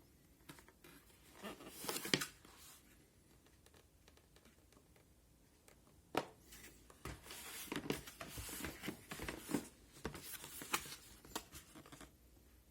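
Packaging being handled and opened: irregular rustling, scraping and sharp clicks, in a short spell about two seconds in and a longer one from about six seconds to near the end.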